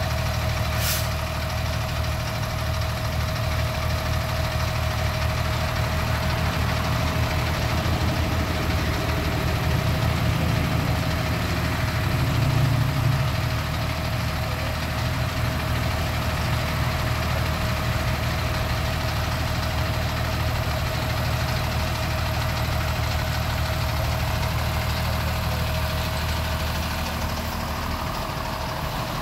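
Fire engine's diesel engine idling steadily: a low, even rumble with a steady hum above it.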